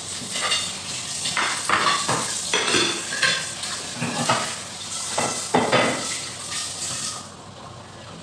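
A metal utensil scrapes and clatters against a bowl and a wok over a sizzling hiss, as turmeric-fried liver and spleen are stirred in the hot wok. The clatter stops about seven seconds in, leaving a quieter sizzle.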